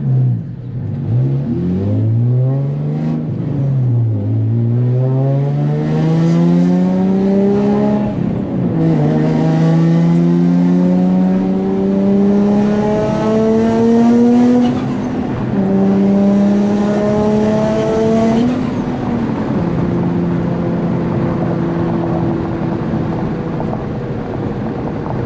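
Turbocharged Nissan 350Z's 3.5-litre V6 (VQ35HR) accelerating hard through several gears. Its pitch climbs on each pull and drops at every upshift. About twenty seconds in it settles to a steady cruise.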